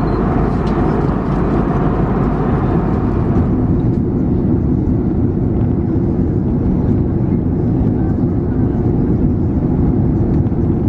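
Steady in-flight cabin noise of an Airbus A330-300: a continuous engine and airflow rumble. About three and a half seconds in the upper hiss drops away and a deeper, even rumble carries on.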